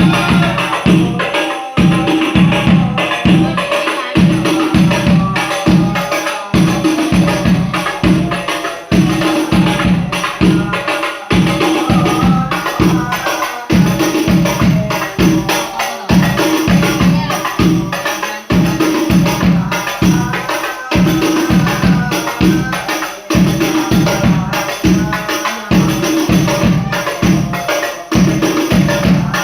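Sholawat devotional music: hand-beaten frame drums with jingles play a fast, steady rhythm under group singing.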